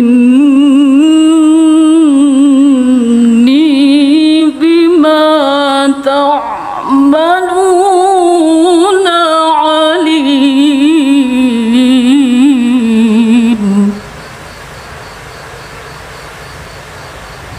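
A woman reciting the Quran in the melodic competition (tilawah) style, one long ornamented phrase whose pitch wavers and trills up and down. The voice is loud, holds for about fourteen seconds and breaks off, leaving only a steady background hiss.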